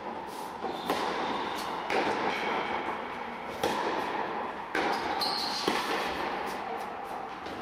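Tennis rally on an indoor hard court: a serve, then rackets striking the ball and the ball bouncing, about six sharp hits roughly a second apart, each echoing in the hall.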